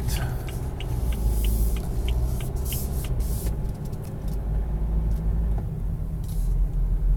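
Car turn-signal indicator ticking, about one and a half ticks a second, and stopping about three seconds in as the turn is completed, over the steady low rumble of the engine and road noise inside the cabin.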